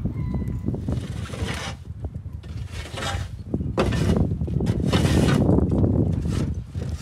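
Long-handled shovel scraping old bedding across a wooden coop floor in several rough swipes, over a steady low rumble.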